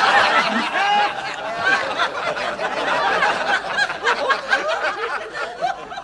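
Studio audience laughing at a punchline: many voices laughing together, loudest at the start and dying down slightly toward the end.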